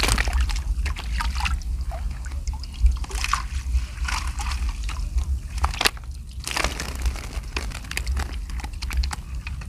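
Seawater sloshing and splashing in irregular bursts, with a steady low rumble underneath.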